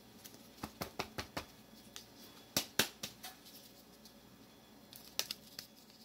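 Sharp clicks and taps from a plastic spice container being handled while seasoning is shaken out. They come in irregular groups: several quick ones about a second in, two louder ones near the middle, and a few more near the end.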